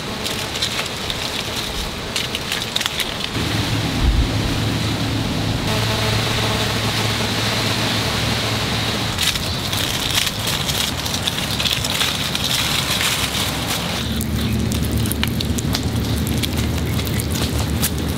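Crackling rustle of dry leaf litter as a softshell turtle crawls over it, over a steady high hiss; a low rumble comes in about three seconds in.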